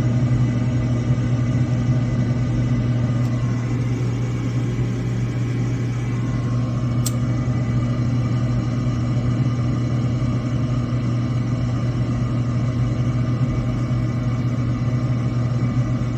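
Old Frigidaire gas furnace running steadily, a constant low hum from its fired burners and fans, with one faint tick about seven seconds in.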